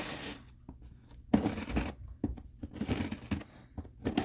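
A heavily taped shipping package being worked open: packing tape scraping, tearing and crinkling in irregular bursts.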